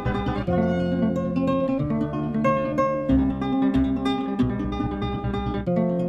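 Acoustic guitar music, chords strummed with the harmony changing every second or so.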